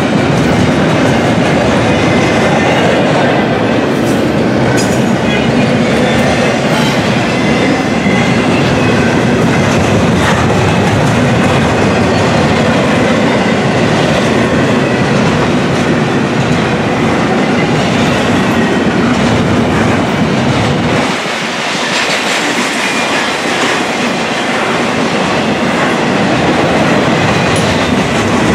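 Double-stack intermodal container train's well cars rolling past close by: a loud, steady rumble of steel wheels on the rails with occasional clicks. The low rumble drops away briefly about three-quarters of the way through.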